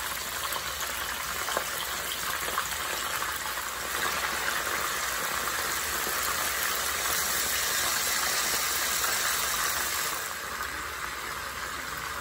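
Pandan-leaf-wrapped chicken pieces sizzling in hot oil in a stainless wok, with two light clicks in the first few seconds. The sizzle swells louder from about four seconds in, as more wrapped pieces go into the oil, and eases off a little near the end.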